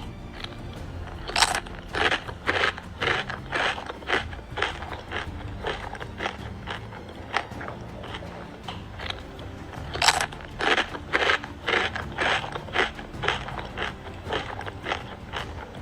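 Pet bird biting and chewing jackfruit: a run of short, crisp crunches, one or two a second and irregular, with the loudest bites about a second and a half in and about ten seconds in.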